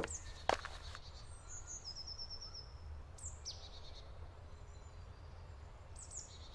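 Forest ambience with songbirds calling, including a fast series of high notes stepping down in pitch, over a steady low rumble. Two sharp knocks come in the first second.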